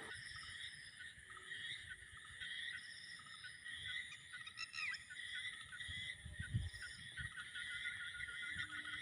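Faint outdoor chorus of insects chirring steadily with birds chirping, one short gliding bird call about five seconds in, and a few low rumbles a little later.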